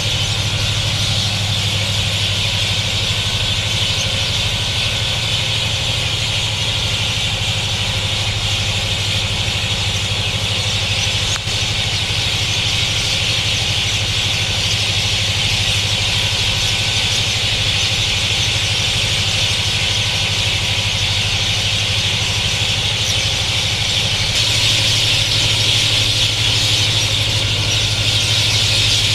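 A dense chorus of many birds chattering at once, blending into one continuous high-pitched din, over a steady low hum; the chorus grows a little louder near the end.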